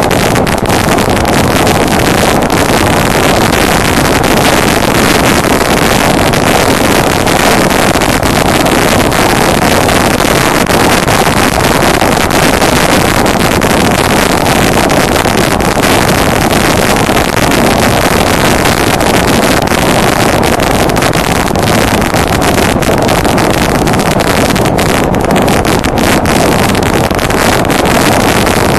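Honda Deauville NT650V V-twin motorcycle ridden at a steady cruising speed: a loud, even drone of engine and road noise mixed with heavy wind rush on the mounted microphone.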